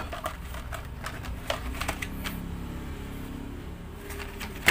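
Hands handling a cardboard colour-sample catalog: scattered light taps and clicks of fingers and card, with one louder click near the end.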